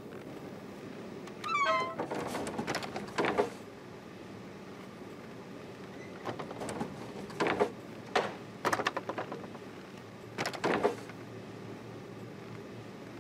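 Wooden plank gate being swung shut and secured: a short wavering squeal from its hinges, then three bouts of creaking, scraping and knocking.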